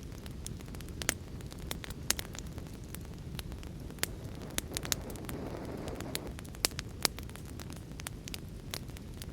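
Fire crackling: irregular sharp pops and snaps over a low steady rumble, with a brief swell of hiss around the middle.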